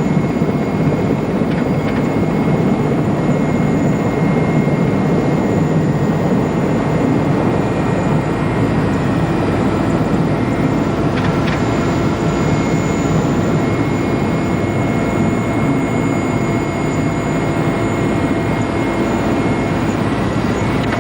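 Helicopter engines and rotor heard from inside the cabin in flight: a loud, steady drone with a thin, high, steady whine over it.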